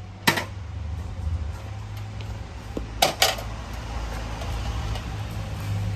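Sharp metallic clicks of a mini gas canister being handled and fitted into a portable camping gas stove: one near the start and two in quick succession about three seconds in, over a steady low hum.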